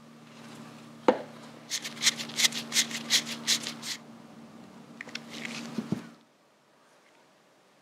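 A screwdriver turning the brake lever pivot screw on a Harley Sportster front master cylinder. There is one sharp click about a second in, then a quick run of about a dozen clicks, roughly five a second, and a few more about five seconds in.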